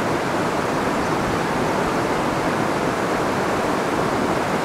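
River water rushing over shallow rapids, a steady even rush.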